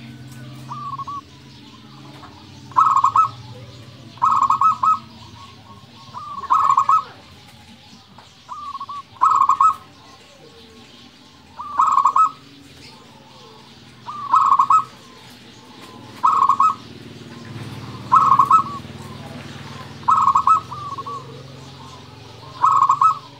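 Zebra dove (perkutut) cooing in full song: about ten loud, quick bursts of staccato coos, one every two seconds or so, with a few fainter calls between them.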